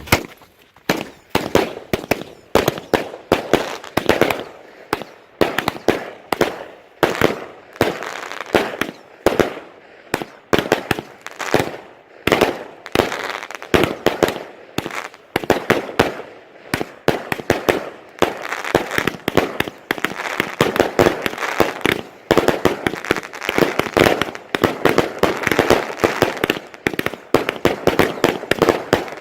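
Consumer firework cake firing: a rapid, uneven string of loud shots and aerial bursts with crackling between them.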